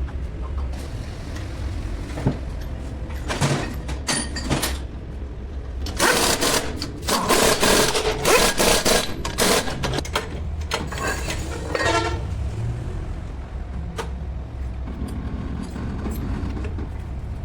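Workshop noise: a steady low hum, with several seconds of busy metallic clattering and knocks in the middle.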